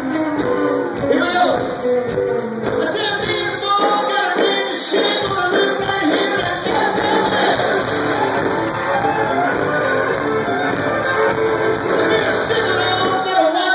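A live band playing, with a man singing lead into a microphone over electric guitar.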